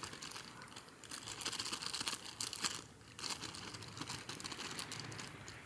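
Food packaging crinkling and rustling as it is handled, in a string of short crackles that ease off near the end.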